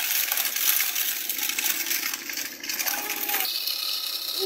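Small electric motor of a homemade toy tractor driving a toy machine through a shaft, running with a fast metallic rattle. About three and a half seconds in the sound changes abruptly to a steadier high whine.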